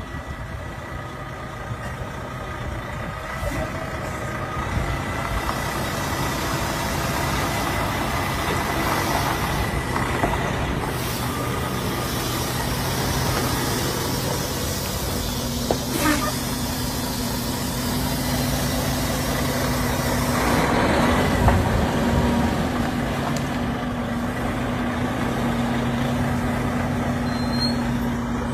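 Volvo semi-truck's diesel engine running steadily as the tractor-trailer creeps across the lot, a low drone with a second, higher hum joining about halfway. A sharp click comes a little past the middle, and a short rush of noise follows a few seconds later.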